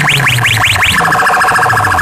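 Stacked horn loudspeakers of a sound-box rig blaring an electronic siren effect: quick rising chirps about five a second, switching about a second in to a fast pulsing, warbling alarm tone.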